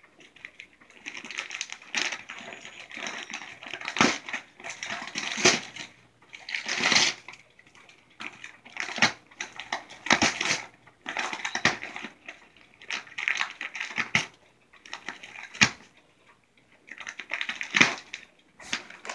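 A small dog ripping and crinkling shiny wrapping paper off a round gift: irregular bursts of paper rustling and tearing, broken by short pauses and a few sharp snaps.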